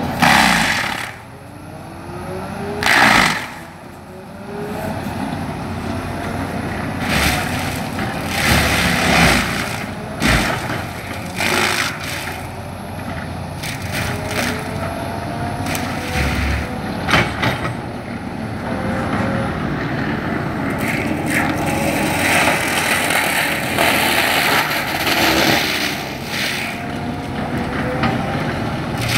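Denis Cimaf 150e forestry mulcher on a Cat 336E excavator cutting through a pine trunk and grinding its stump, with repeated loud bursts of grinding as the spinning rotor's teeth bite into the wood. Under it runs the machine's hum, rising and falling in pitch.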